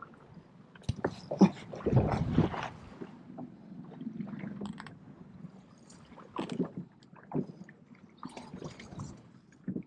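Irregular knocks, bumps and rattles on a small fishing boat, with a dense burst of clattering about one to three seconds in and scattered single knocks after it.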